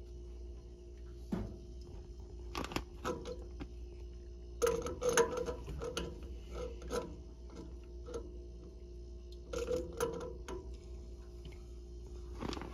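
Wrench and pliers clicking and scraping on a brass boiler pressure relief valve as it is turned the last bit tighter onto its threaded pipe elbow. The clicks come in scattered short clusters over a steady low hum.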